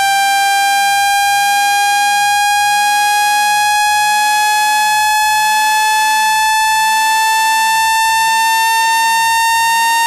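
Synthetic speaker-cleaning tone, played to shake water and dust out of a phone speaker: a loud, buzzy electronic tone with many overtones, gliding slowly and steadily upward in pitch.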